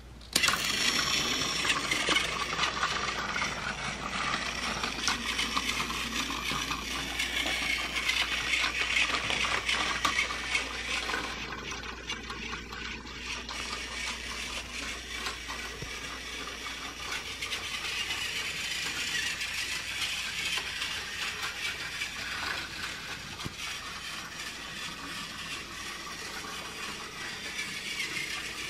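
Battery-powered Tomy Plarail Thomas toy train switched on just after the start, then running along plastic track. Its motor and wheels clatter continuously, and the freight car's dynamite crate cargo rattles as it bounces up and down in motion.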